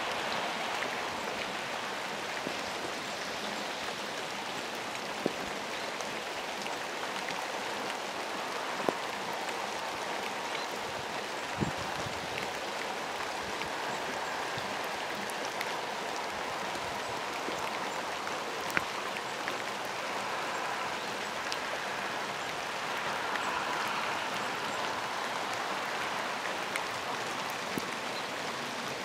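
Steady rain falling, an even hiss with a few sharp ticks of drops landing close by.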